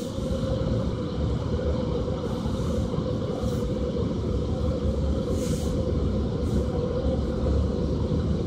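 Steady low rumble with a constant hum, heard from inside a car, with several short hissing swooshes coming and going.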